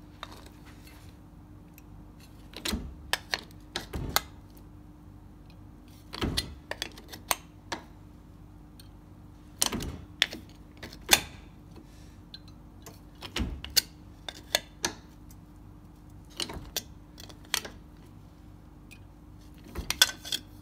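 A hand-lever METZ shrinker-stretcher with its stretching jaws working an aluminium strip to straighten it. Each stroke gives a cluster of sharp metallic clicks and clacks, coming about every three to four seconds as the jaws bite and the strip is moved along.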